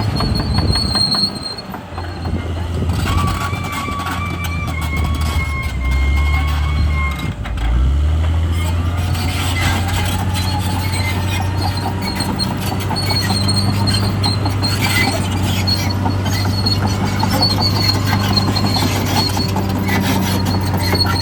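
Caterpillar D6R XL crawler bulldozer working: its diesel engine runs steadily and eases off briefly twice, while the steel tracks squeal and clank.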